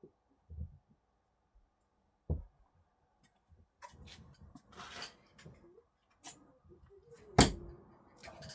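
Thrown screwdrivers hitting a target: a dull thud about two seconds in, then a much louder sharp strike near the end that rings briefly. Some scuffing and handling sounds fall between them.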